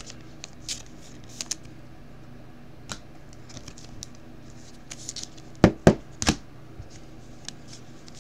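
Trading cards and clear plastic penny sleeves being handled: light scratching, sliding and crinkling of card and plastic, with three sharper clacks a little past the middle.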